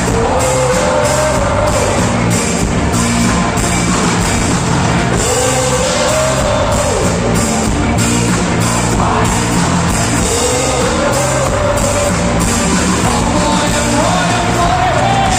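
Rock song played by a full band with a steady drum beat, and a voice singing long held notes over it.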